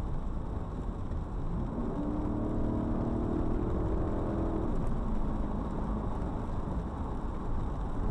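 Car driving, with a steady low rumble of engine and road noise. About two seconds in, an engine note rises in pitch, holds for a few seconds and then fades.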